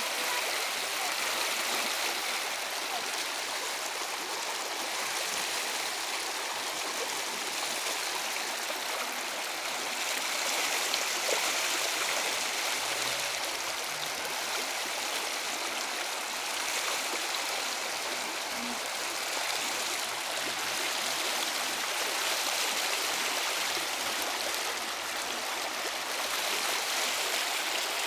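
Storm floodwater rushing steadily down a stone-walled ravine channel, a steady hiss of fast, shallow, muddy water that swells and eases slightly.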